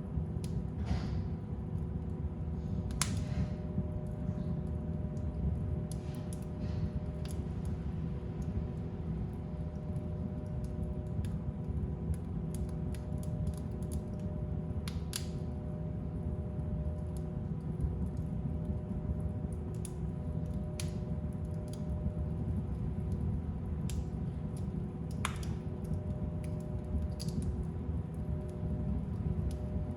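Fire burning in a fireplace: a steady low rumble of flames with irregular sharp crackles and pops every second or few, over a faint steady hum.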